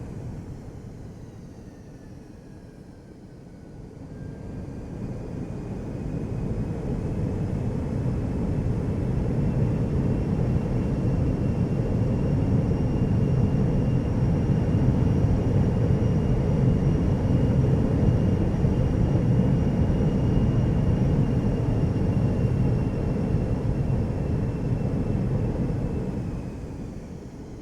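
Jet engine winding down at first, then revving back up about four seconds in with a rising whine. It holds at high power, a steady whine over a deep rumble, and winds down again near the end.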